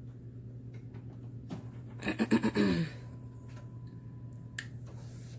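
A brief pulsing vocal sound, under a second long, about two seconds in. It falls in pitch as it goes, over a steady low hum.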